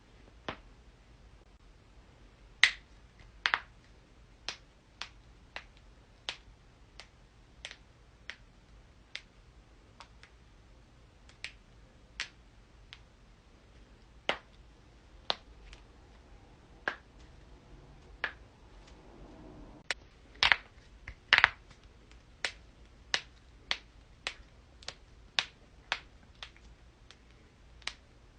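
Joints being cracked: a long run of short, sharp pops at uneven spacing, about one a second, with a few much louder pops about two and a half seconds in and again around twenty seconds in.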